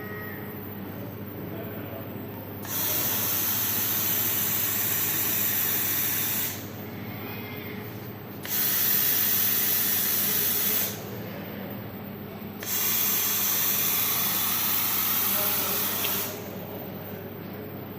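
Robot-arm welding: three separate weld runs, each a steady hiss lasting about three to four seconds, with a steady machine hum running between them.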